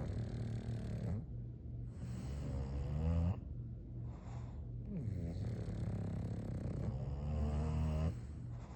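English bulldog snoring: rhythmic, rasping snores in repeated long breaths, the last and longest lasting about three seconds.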